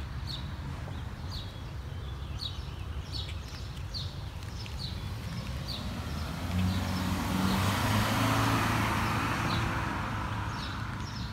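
A car passes by, swelling from about six seconds in and fading away over the next few seconds. A bird chirps repeatedly throughout.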